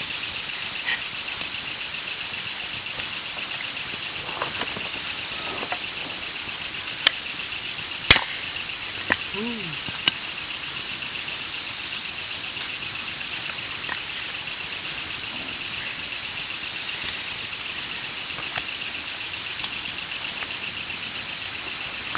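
Insects trilling in a steady, high-pitched, fast-pulsing chorus, with a few sharp pops like a campfire crackling, the loudest about 8 seconds in.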